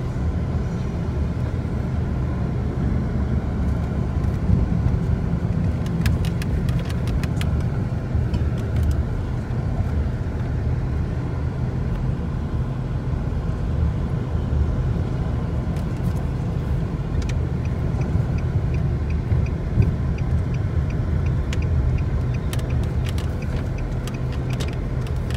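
Car driving slowly, its engine and tyre noise a steady low rumble heard from inside the cabin. A few faint clicks come about six seconds in and again near the end.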